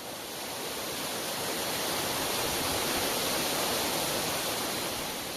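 Waterfall: a steady rush of falling water, fading in over the first second or two.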